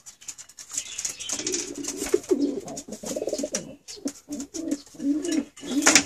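Domestic racing pigeons cooing, a series of low wavering coos that begin about a second and a half in and repeat, with short clicks and scuffs between them.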